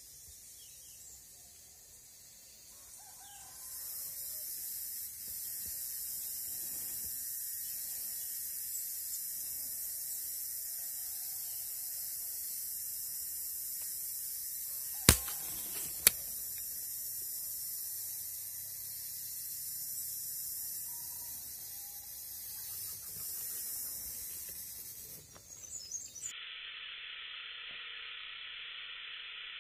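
Steady high-pitched insect drone that starts a few seconds in and stops abruptly near the end, where a lower steady buzz takes over. Two sharp cracks about a second apart are the loudest sounds, midway through.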